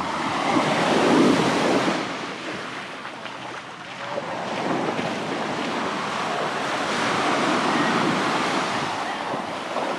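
Sea waves washing onto a beach, surging and receding in swells, the loudest about a second in and another building later on, with wind buffeting the microphone.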